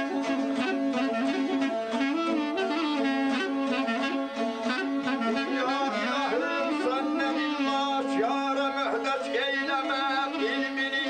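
Balaban, a double-reed wind instrument, playing a held, ornamented melody over a strummed saz: the instrumental introduction to an ashiq song.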